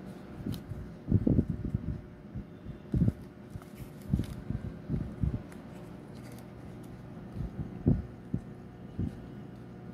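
Hands folding and creasing a small paper finger puppet: irregular soft low thumps and faint papery ticks as the paper is pressed and worked between the fingers, over a faint steady hum.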